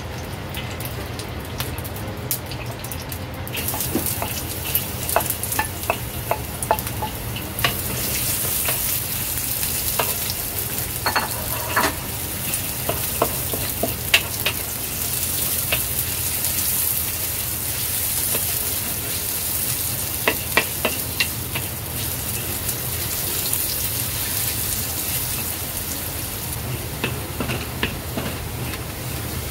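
Sliced shallots sizzling in hot oil in a wok while a wooden spatula stirs them, knocking and scraping against the pan. The sizzle starts a few seconds in, when the shallots go into the oil, and grows louder a few seconds later.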